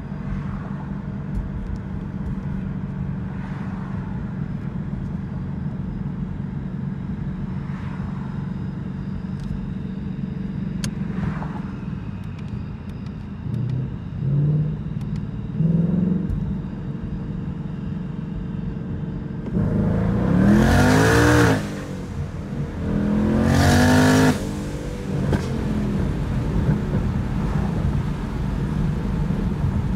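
Twin-turbocharged 2019 Ford Mustang GT's 5.0 L V8 heard from inside the cabin, running steadily, with two short throttle rises around 14 and 16 seconds. About 20 seconds in, the car makes two hard full-throttle pulls, a second or so apart, with the engine pitch rising and a loud rushing whoosh, which is the turbo wastegates opening because the exhaust valves are disconnected.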